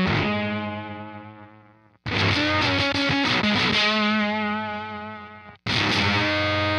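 Distorted electric guitar played through an EarthQuaker Devices Bit Commander octave synth pedal: short riffs ending on held, slowly fading notes, each phrase cut off abruptly, about two seconds in and again near the end.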